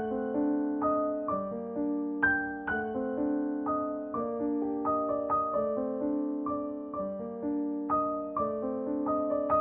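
Background piano music: single notes struck one after another, each ringing and fading, in a slow repeating pattern.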